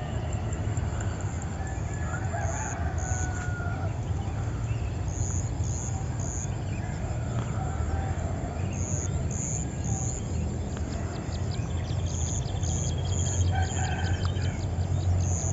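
Morning birdsong in farmland: a rooster crowing amid other birds' calls and short high chirps, over a steady low rumble. About eleven seconds in, a rapid high trill of ticks runs for a few seconds.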